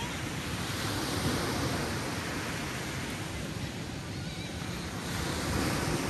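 Small ocean waves breaking and washing up a sandy beach: a steady surf hiss that swells about a second in and again near the end.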